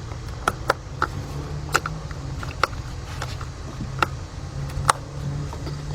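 Sharp plastic clicks and light rattling as wiring-harness connectors are pushed and snapped onto an engine's three ignition coils, about seven clicks at uneven intervals. A steady low hum runs underneath.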